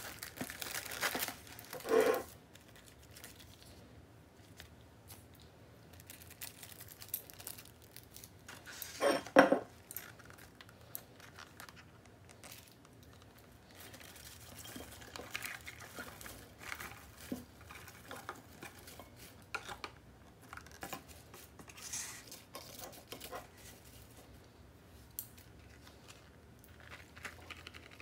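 Clear plastic salad packaging crinkling and rustling as salad leaves are lifted out with chopsticks, with light clicks against a ceramic bowl. Louder tearing, crackling bursts come about two seconds in and, loudest, about nine seconds in.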